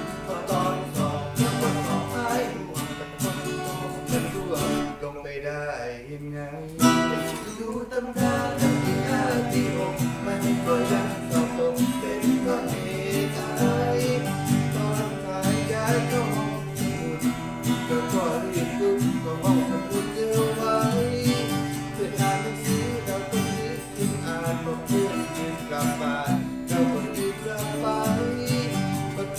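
A small acoustic band playing a pop song: two strummed acoustic guitars over an Aria FEB-30M acoustic-electric bass guitar, with a man singing. About five seconds in the music thins out briefly, then comes back in with a sharp hit about seven seconds in.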